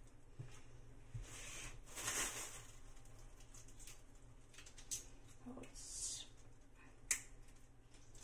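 Faint handling sounds as large raw prawns are picked out of a plastic colander in a stainless-steel sink: a plastic bag crinkling twice, a few light knocks, and one sharp click near the end.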